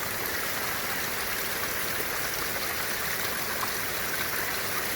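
Mountain waterfall rushing, a steady even hiss of falling water.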